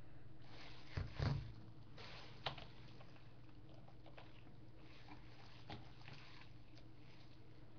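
Small objects being handled on a desk: a few soft knocks about a second in, a sharp click a second and a half later, then fainter clicks, over a steady low hum.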